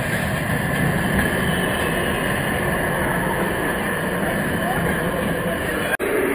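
Electric tram passing close by on street rails, a steady rumble of wheels and running noise over street noise. The sound drops out for an instant about six seconds in.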